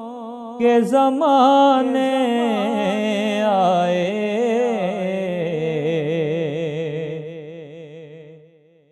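Male voice singing a naat: a long, wordless, wavering ornamented phrase that slides and bends in pitch, then fades away near the end.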